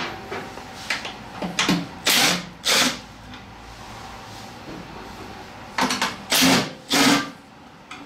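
Cordless impact driver with a 10 mm socket running in short bursts as it backs out the bolts on a snowblower's friction-drive cover: a group of bursts about two seconds in and another group about six seconds in.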